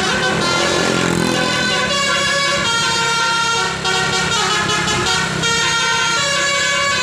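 Multi-tone 'basuri' telolet air horn on a Dedy Jaya bus playing a continuous melody of loud sustained notes that shift in pitch in steps, with a short break about four seconds in.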